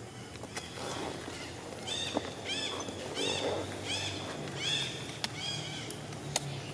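A baby monkey calling: a run of about eight short, high-pitched cries, each rising then falling in pitch, at about two a second.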